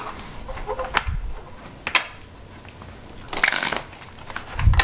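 A new deck of tarot cards with a pliable, playing-card feel, handled and shuffled by hand on a table. There are two sharp taps, a short rustling shuffle about three and a half seconds in, and a soft thump near the end.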